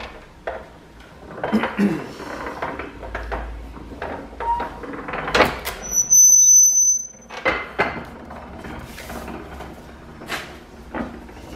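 Paper guillotine cutting a clamped stack of brochures: a run of mechanical clunks and knocks as the clamp and knife work, with a brief high squeal lasting about a second a little past the middle, the loudest moment.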